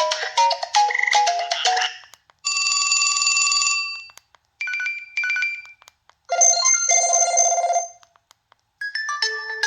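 LG Revere Black Edition phone playing its preloaded ringtones one after another. A melodic tune ends about two seconds in. Then comes a steady electronic ring, two short beeps, a second ring, and a new melody starting near the end.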